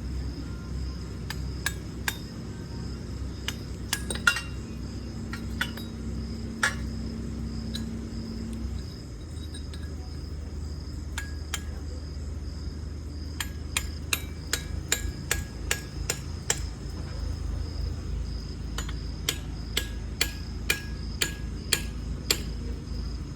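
Hammer blows and metal-on-metal strikes on the steel parts of a manual pipe tong under repair. The sharp taps come irregularly at first, then in quick runs in the second half, over a steady low drone.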